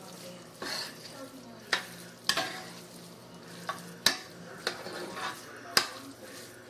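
A spoon stirring browned ground beef and Rice-a-Roni together in a pan: soft scraping of the food with several sharp knocks of the utensil against the pan, over a faint sizzle.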